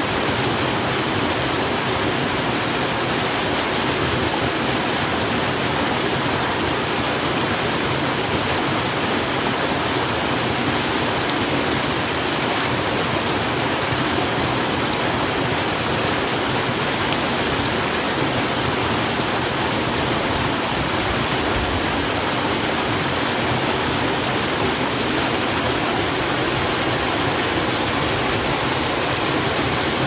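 Small waterfall spilling over rock ledges into a foaming pool: a steady, even rush of falling water.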